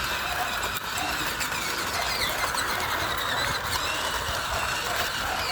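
Toy RC car's small electric motor whirring steadily as it drives.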